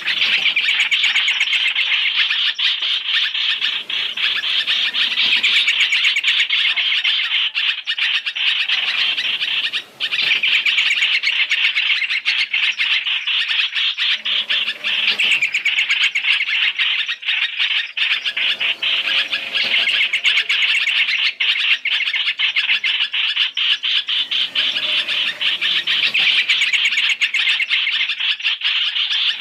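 Dense, continuous chattering and chirping of hoành hoạch (trao trảo) birds, a lure-call recording used to attract these birds to traps. The calls run on without pause, rapid and high-pitched.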